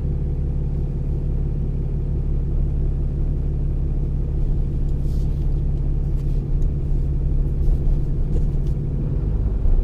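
Cummins 6.7-litre inline-six turbo diesel running at idle in gear with the exhaust brake engaged for warm-up, the variable-geometry turbo's vanes nearly closed; a steady low engine drone heard from inside the cab. Its note shifts just before the end.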